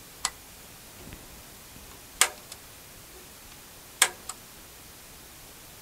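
Sharp clicks over faint steady hiss: one soon after the start, then two louder clicks about two seconds apart, each followed a moment later by a softer second click.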